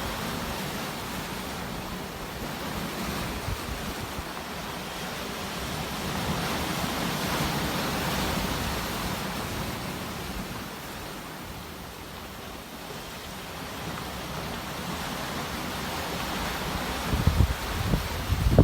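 Sea waves washing in, a steady rush of surf that swells and eases. Near the end, wind gusts buffet the microphone.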